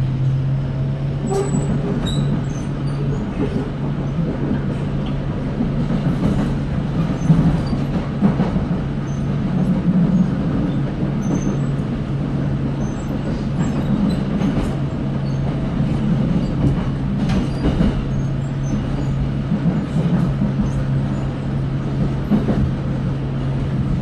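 Electric commuter train running, heard from inside the passenger car: a steady low hum over a rumble of wheels on the rails, with scattered light clicks.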